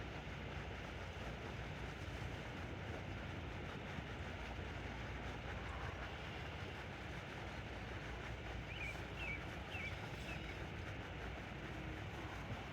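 Steady outdoor background hiss, with a few faint high chirps about nine to ten seconds in.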